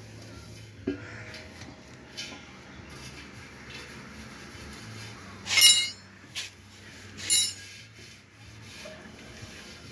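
Cloth wiping the inside of a stainless steel dough mixer bowl, with a few light metallic clinks and two louder ringing metal squeaks, one a little past halfway and another close behind it.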